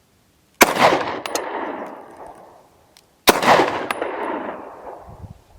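Two pistol shots about two and a half seconds apart, each a sharp crack followed by a long fading echo. A few faint clicks follow the first shot.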